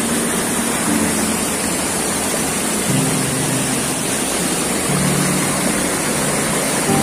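Steady rush of flowing stream water at a waterfall-fed bathing pool, with faint background music of held low notes changing about every two seconds.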